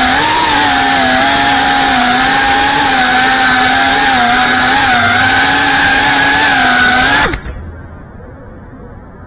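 FPV freestyle quadcopter's brushless motors whining at a high pitch, the pitch wavering with the throttle. About seven seconds in the motors spool down with a quick falling whine and cut off suddenly as the drone is set down and disarmed.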